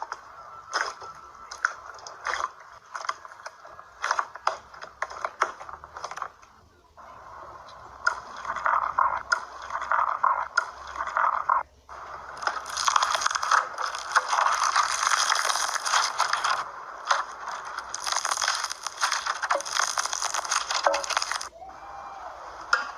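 Slime being squeezed and pressed by hand, with sharp pops and clicks at first. After a few seconds it turns into a dense, loud crackling.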